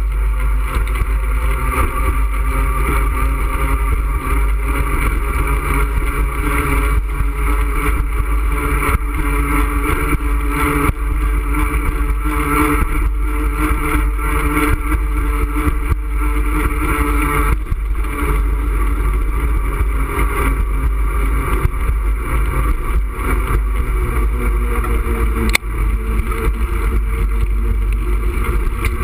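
Continuous low rumble of wind buffeting an action camera's microphone, mixed with the drone of car traffic on the roadway alongside. One brief click near the end.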